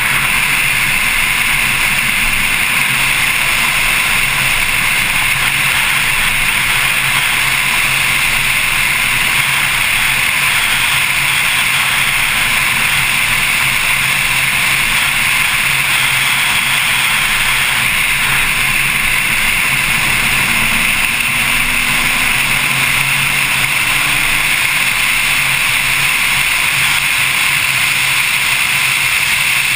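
Porsche Carrera S driven at speed, heard from a camera on its front hood: a steady rush of wind over the microphone, with the flat-six engine faint underneath and a slight rise in engine pitch about two-thirds of the way through.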